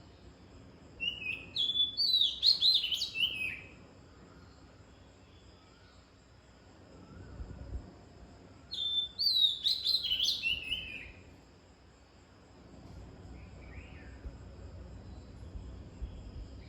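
A songbird singing two short, rapid phrases of varied whistled and chattering notes about seven seconds apart, over a faint steady chirring of insects.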